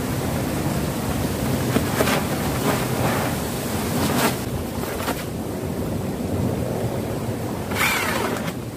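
Steady rushing noise, like wind on the microphone, with about six sharp knocks or scrapes at irregular intervals, the last one near the end.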